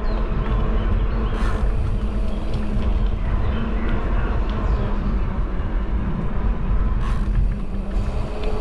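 Wind buffeting the microphone of a camera carried on a moving bicycle, a steady dense rush with heavy low rumble, with two brief knocks about one and a half seconds in and near the end.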